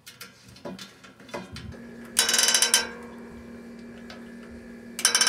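Light metallic clicks of a bicycle spoke and nipple being handled. A loud, rapid ratcheting buzz follows a couple of seconds in, then a steady hum, and another short ratcheting buzz near the end.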